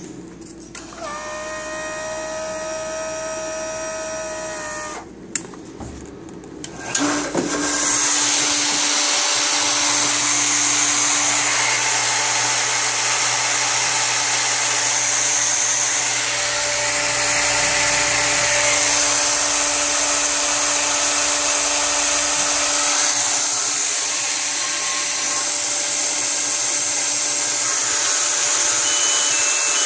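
A steady pitched buzz with overtones sounds for about four seconds, then about seven seconds in a Berkeley electric water pump starts and runs steadily and loudly, a whirring hiss with a constant hum under it.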